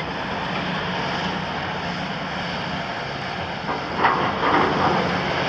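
Cat 352 hydraulic excavator's Cat C13 six-cylinder diesel engine running steadily under working load, with a brief louder clatter about four seconds in.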